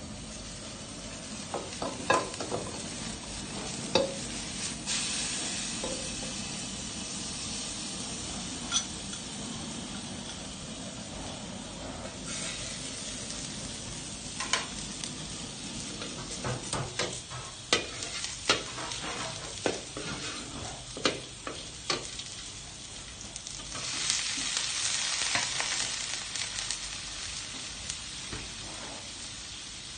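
Vegetables stir-frying in a steel wok: a metal ladle clanks and scrapes against the wok many times over a steady sizzle. The sizzle swells louder several times, most strongly late on.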